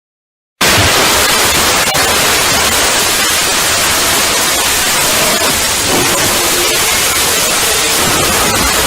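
Harsh, very loud static-like noise that cuts in abruptly about half a second in and runs on without a break, with faint tones barely showing through: a deliberately distorted 'punishment' sound effect.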